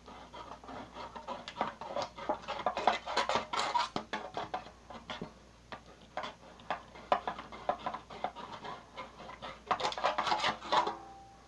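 Knife blade cutting slashes into the thin sheet-metal wall of a cookie tin: a run of irregular clicks and scrapes of metal, in two busy spells with a quieter stretch between.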